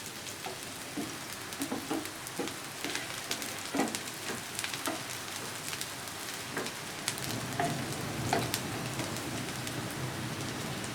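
Finely chopped onion and green chillies sizzling in hot soybean oil in a frying pan, being lightly fried, with scattered short taps and scrapes of a spatula as they are stirred.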